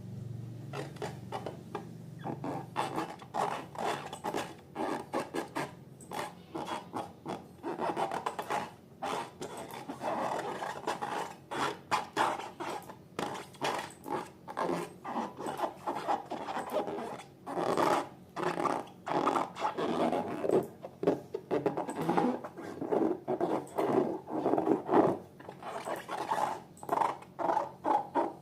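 Slime being mixed and worked, making repeated wet squelching and scraping strokes at about two or three a second.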